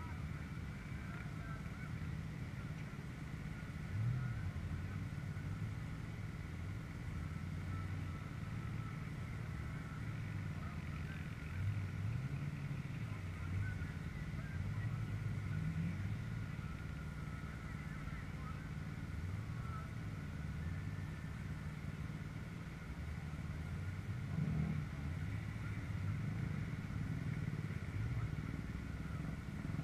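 Distant pickup truck engines running and revving, the engine note rising and falling several times, with a louder rev late on.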